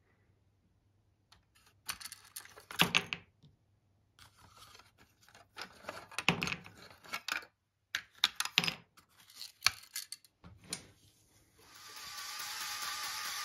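Plastic Lego Technic parts and small wooden sticks being handled and fitted into a model wood chipper's hopper: irregular clicks, knocks and rattles in bunches with short pauses. Music fades in near the end.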